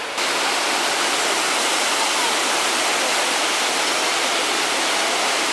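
Trevi Fountain's water cascading into its basin: a steady, loud rush of falling and splashing water that comes in abruptly just after the start.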